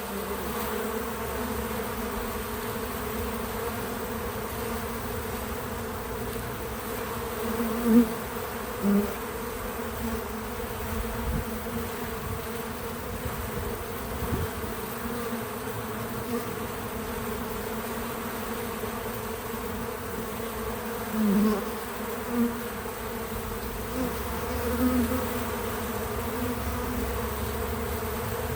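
Many bees buzzing steadily at a feeder, a continuous hum. Now and then a single bee passes close and swells louder for a moment, several times.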